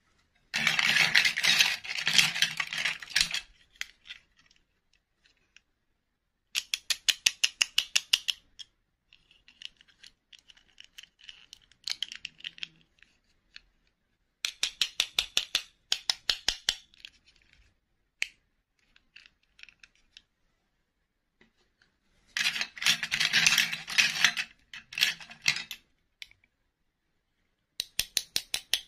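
Small plastic dolls and their soft plastic clip-on dresses handled in the hands, in bursts of rapid clicking, rattling and scraping with pauses between.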